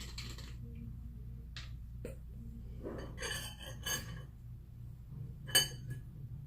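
Scattered light clinks and knocks of eating utensils against dishes and a drinking glass, the sharpest about five and a half seconds in, over a low steady hum.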